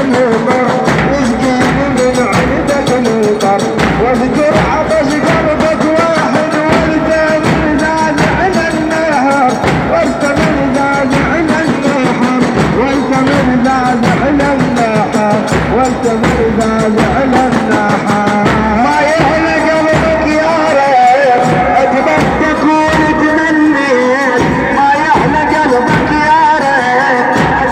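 Men chanting a Shia mourning lament for Husayn in unison, to a steady beat of sharp percussive strikes.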